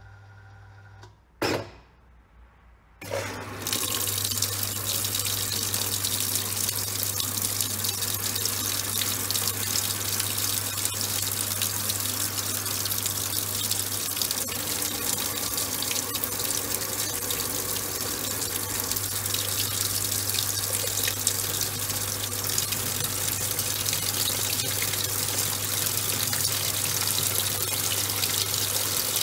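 Top-loading washing machine filling: after a short knock about a second and a half in, water starts pouring steadily into the tub about three seconds in, over a steady low hum.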